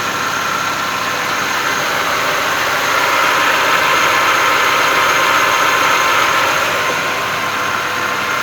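Hyundai Tucson's engine idling steadily, with a thin steady whine on top.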